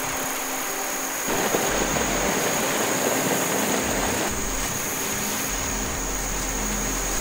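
Small forest stream rushing over rocks, a steady noise that gets louder about a second in and eases a little around four seconds in.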